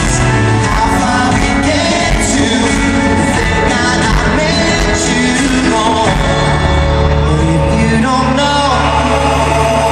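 Live pop song with a male lead vocal sung into a microphone over steady backing music with held bass notes.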